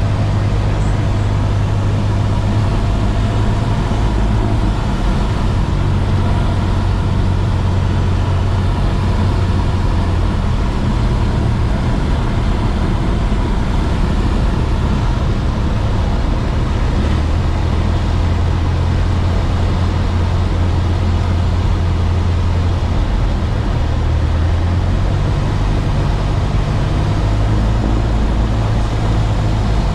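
Light single-engine airplane's piston engine and propeller running steadily, heard inside the cabin during a touch-and-go, the pitch shifting slightly a few times.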